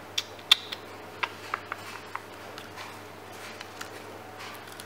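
Scattered small clicks and taps, most of them in the first two seconds and fainter after, over a low steady room hum: desk items being handled.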